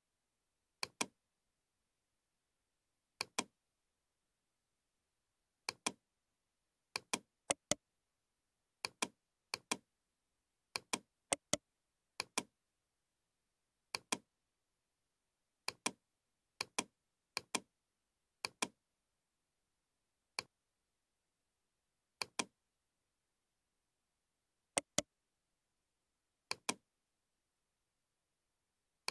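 Computer mouse button clicks, mostly in quick pairs, every second or two, with silence between.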